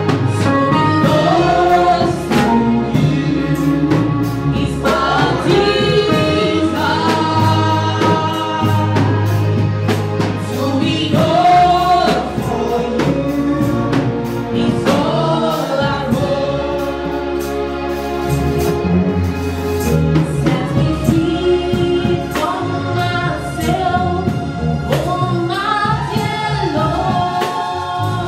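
Live gospel praise singing: a woman leads the song into a microphone over an amplified band, with sustained bass notes and frequent percussion hits.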